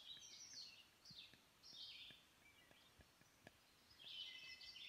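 Faint birdsong: a bird sings several short, high-pitched chirping phrases, the longest near the end.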